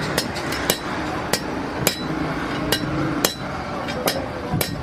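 Hammer striking metal again and again at an uneven pace, each blow with a short metallic ring, over steady background noise.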